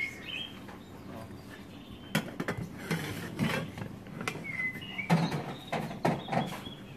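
Glassware and bar tools knocking and clinking on a bar counter as a bartender handles them while mixing a drink, with a brief high squeak about halfway through.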